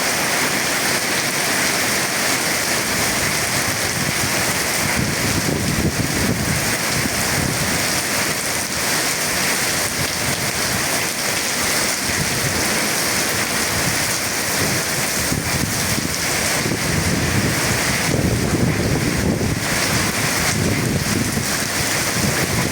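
Heavy rain falling steadily during a thunderstorm, with low rumbles of thunder swelling up a few seconds in and again for the last several seconds.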